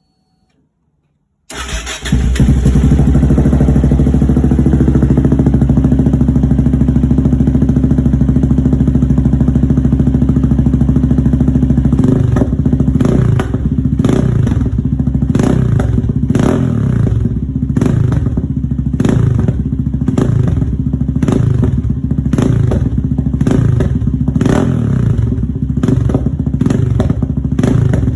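Yamaha MT-03 660cc single-cylinder engine breathing through a Mivv exhaust with the baffles removed: it starts about a second and a half in and idles loudly and steadily. From about halfway it is revved in quick repeated throttle blips, each rising and falling in pitch.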